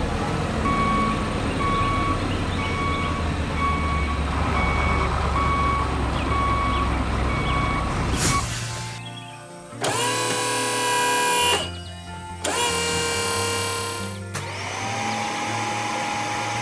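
A heavy vehicle's reversing alarm beeping evenly, a little faster than once a second, over a low engine rumble for about eight seconds. After it come two long horn blasts, then a third horn-like tone that slides up and holds.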